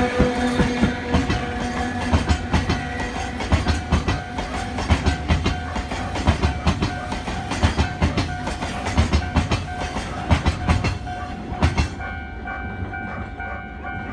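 Freight hopper wagons (Hoki 1000) rolling past, their wheels clacking over rail joints in quick pairs, until the last wagon clears about twelve seconds in and the sound drops away. A steady high ringing tone continues underneath and is left on its own at the end.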